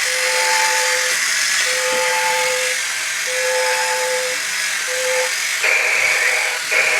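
Battery-powered Happy Kid toy fighter robot running: its small electric motor whirs steadily while its speaker plays an alarm of long, even beeps about a second each with short gaps, switching to higher-pitched beeps a little past halfway, its enemy-alert sound effect.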